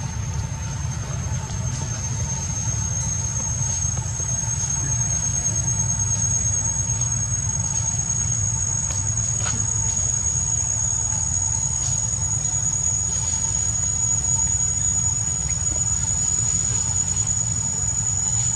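A steady, high-pitched insect drone, its pitch creeping slowly upward, over a steady low rumble.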